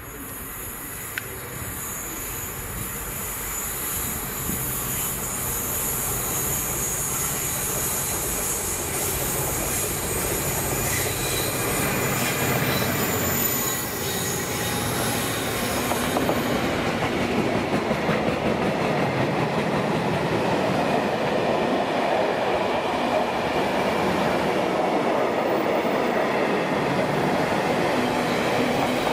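Freightliner Class 66 diesel locomotive approaching and passing at the head of a container freight train, its wheels giving a high-pitched squeal on the curve as it comes in. After it passes, about halfway through, the container wagons roll by with a steady loud rumble.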